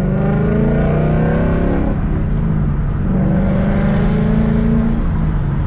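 A 2019 Mustang GT's 5.0-litre V8, breathing through a Corsa Extreme active exhaust and heard from inside the cabin, accelerating up through the gears. The engine note rises, falls at an upshift about two seconds in, climbs again, and falls at a second upshift near the end.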